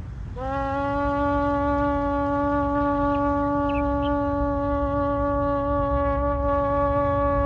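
A shofar (ram's horn) blown in one long held note. It starts about half a second in with a slight upward scoop in pitch, then holds steady, over a steady low rumble.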